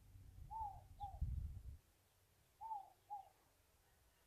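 A dove cooing a two-note call, a longer note then a shorter one, twice about two seconds apart. A low rumble sounds under the first call and dies away before the second.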